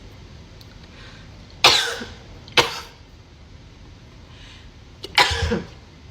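A person's three sharp, forceful bursts of breath, with garlic up the nose. The second burst is short, and the third ends in a falling voiced sound.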